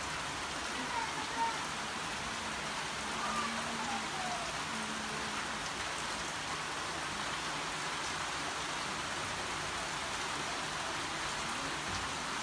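Steady rain falling onto puddles and wet ground.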